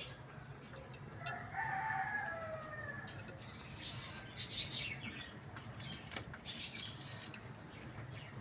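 Rooster crowing once, a drawn-out call of about two seconds that drops slightly in pitch at the end, starting about a second in. It is followed by several short noisy bursts, the loudest about four and a half seconds in.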